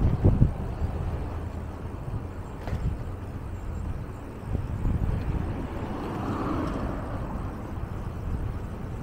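Road traffic on a town street, with a steady low rumble and a car passing about six to seven seconds in. A short knock sounds right at the start.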